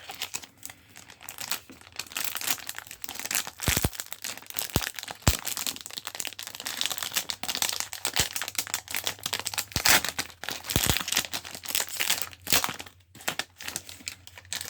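Foil wrapper of a Pokémon card booster pack crinkling and tearing as it is opened: an irregular run of crackles with a few sharper snaps.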